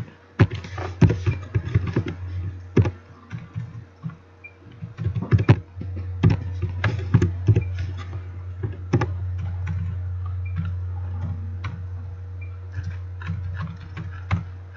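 Computer keyboard typing: irregular keystrokes and clicks, in quick runs with pauses, over a steady low hum that grows louder about halfway through.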